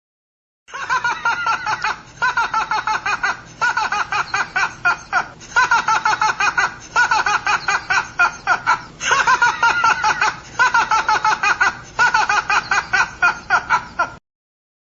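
A person laughing hard in a long string of rapid, pulsing bouts, each about a second and a half long. It starts just under a second in and cuts off abruptly near the end.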